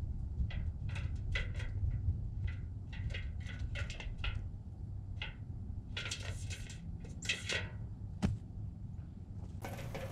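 A squirrel's claws scratching and tapping on a metal squirrel baffle: a quick irregular series of short scrapes and clicks, each with a slight metallic ring, over a low rumble.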